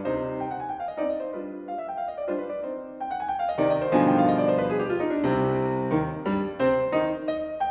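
Steinway grand piano played solo: a fast classical passage of quick running notes and full chords.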